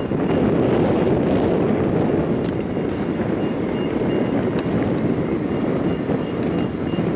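Steady low mechanical rumble mixed with wind on the microphone, with faint high beeps repeating on and off.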